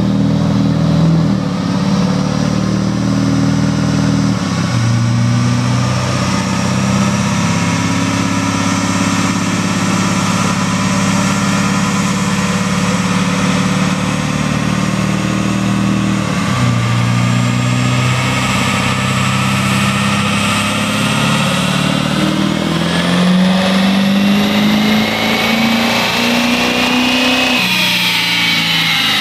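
Diesel pickup truck run hard on a chassis dynamometer, its engine pulling under full load with the wheels spinning the dyno rollers. The engine note drops back twice, about four and sixteen seconds in, as the truck shifts up, then climbs again. A high whine rises along with it and cuts back near the end.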